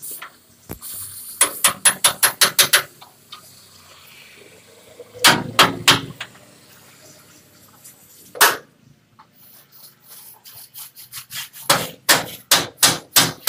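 Metal hammer blows on the steel mounting of a lorry cabin, at the joint just cut with a gas torch to free the cabin from the chassis. The blows come in quick runs: about seven strikes, then four, then a single strike, then about seven more near the end.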